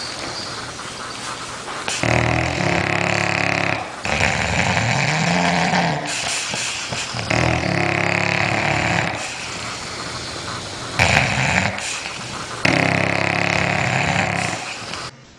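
Dog snoring loudly in its sleep: five long, rasping snores a few seconds apart, one of them rising and then falling in pitch.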